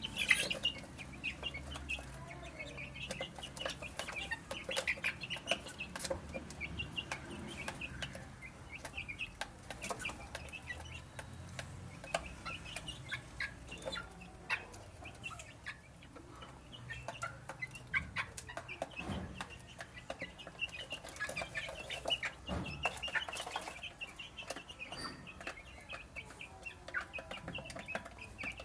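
A flock of young chickens peeping and clucking softly as they feed, with frequent sharp clicks of beaks pecking at a feed dish.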